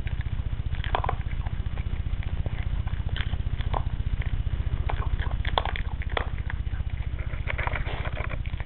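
A Bichon Frise chewing dry kibble: irregular crisp crunches and clicks, several a second in places, over a steady low hum.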